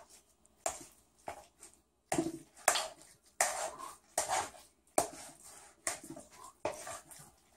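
A large spoon stirring and folding a sticky mixture of cold risotto, egg and minced prosciutto in a big bowl: a run of short, irregular wet scraping strokes, one or two a second.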